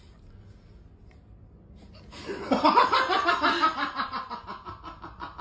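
A person laughing in quick repeated bursts, starting about two seconds in after a quiet stretch.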